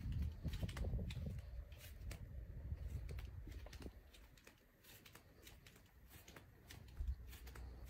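Faint footsteps and small scattered clicks on a hard tiled floor, with a low rumble that fades in the middle and picks up again near the end.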